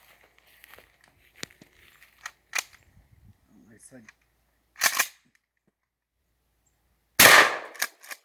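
Shotgun fired with Nitro Magnum shells: two loud reports about a second apart near the end, each trailing off. A few light mechanical clicks and a short sharp clack come before them.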